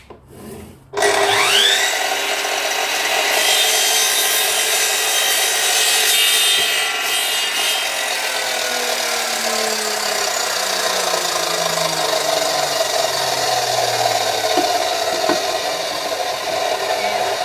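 Electric mitre saw starting about a second in, its motor whining up to speed, then running with the blade cutting a wooden board. A steady loud whirr carries on to the end.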